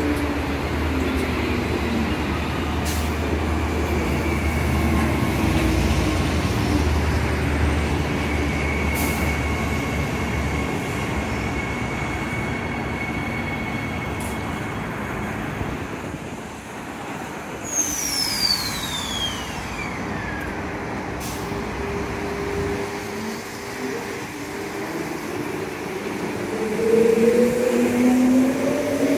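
Electric multiple-unit trains at a station platform: at the start the traction motors whine, falling in pitch as a train slows. The middle holds steady train running noise with a thin high tone and a brief high whistle that falls sharply about two-thirds through. Near the end the motor whine rises in pitch and grows loud as a train accelerates away.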